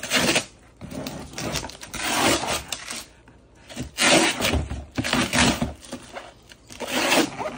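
Tape, paper and cardboard being ripped and scraped as a heavily taped gift box is torn open: a run of rough tearing bursts with short pauses between them.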